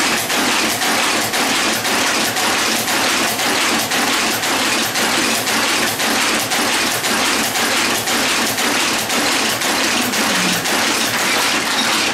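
Type-casting machine running, clattering in a steady rhythm of about three clacks a second over a continuous mechanical din.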